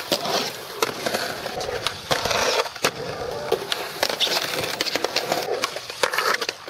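Skateboard wheels rolling over concrete, with several sharp clacks of the board striking the ground.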